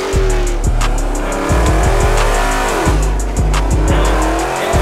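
Hip hop beat with a deep, booming bass that starts and stops in rhythm and steady hi-hat ticks, with sliding tones that rise and fall.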